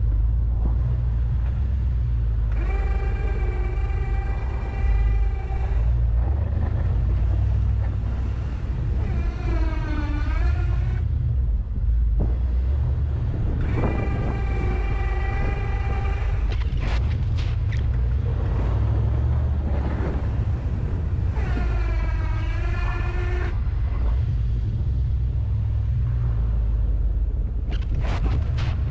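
Steady low rumble of the pickup's engine while plowing, with four separate whines from the DK2 plow's electric-hydraulic pump working the blade. Two of the whines hold a steady pitch; the other two sag in pitch and climb back up. A few light clicks come near the end.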